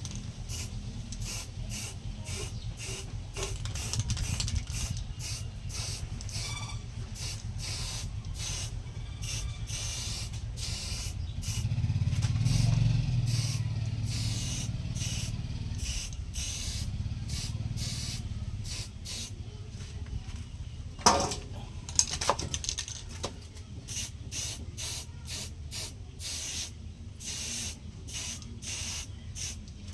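Homemade coconut grater driven by a washing machine motor, running with a low hum while coconut is scraped against the spinning blade, a hissing rasp in rapid repeated strokes. Two sharp knocks come about two-thirds of the way through.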